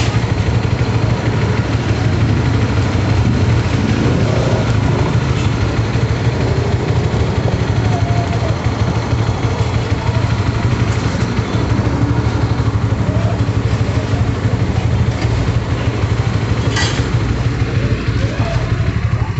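Motorcycle engine idling steadily, with a short sharp click near the end.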